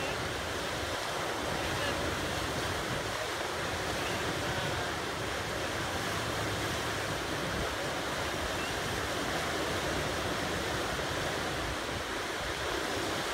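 Steady rush of fast river rapids: whitewater pouring over a standing wave.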